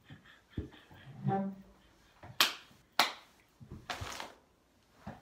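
Breathless, mostly silent laughter: a short voiced giggle about a second in, then two sharp gasping breaths about half a second apart and a longer wheezing breath.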